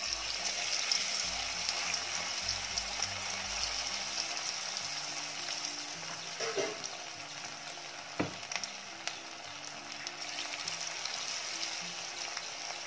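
Marinated, batter-coated chicken pieces deep-frying in hot oil in a kadai: a steady loud sizzle with scattered sharp pops and ticks, the clearest about eight seconds in.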